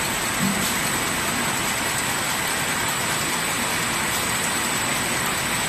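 Rotary hot-melt glue labeling machine running steadily, its bottle turret turning: an even mechanical rush of noise with a thin high-pitched whine over it.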